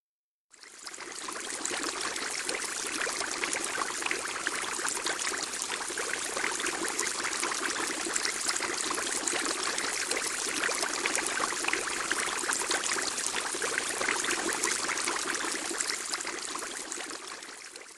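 A steady rush of running water, like a stream, used as a sound effect. It fades in about half a second in and fades out near the end.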